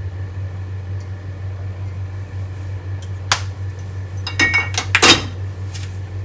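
Kitchenware being handled: a sharp knock about three seconds in, then a few clinks and knocks with brief ringing tones, the loudest just after five seconds, over a steady low hum.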